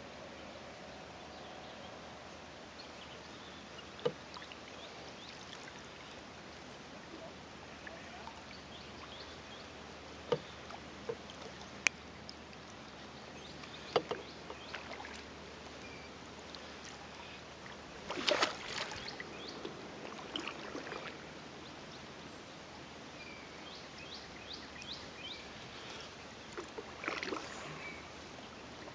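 Wooden kayak being paddled on a river: a steady wash of water and wind noise broken by a few sharp knocks and a longer, louder clattering burst about two-thirds of the way through. Faint high chirps come near the end.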